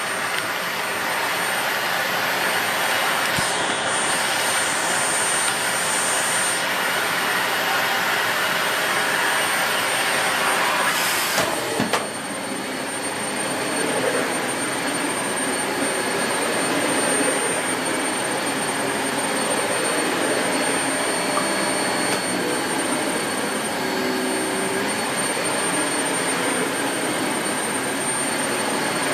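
Dyson Light Ball Multi Floor bagless upright vacuum cleaner running steadily with a thin high whine over its motor noise. A brief knock comes about eleven seconds in, and the sound dips for a moment before carrying on.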